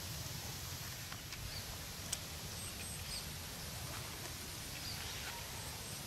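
Outdoor rural ambience: a steady hiss with a few faint, short bird chirps and one sharp click about two seconds in.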